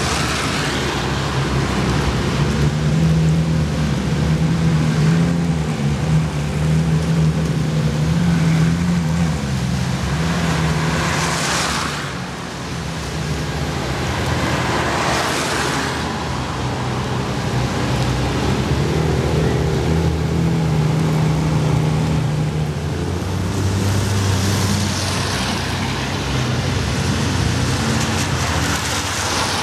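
Ferrari sports cars, mostly 458 Italias with V8 engines, running at low revs as they pull out and drive off in a line. Tyres hiss on the wet road as vehicles pass close by, three times.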